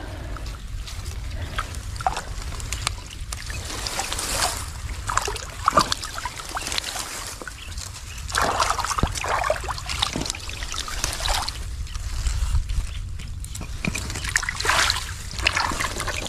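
Water splashing and sloshing in irregular bursts as a speared fish or dart is worked free in shallow water, over a steady low rumble.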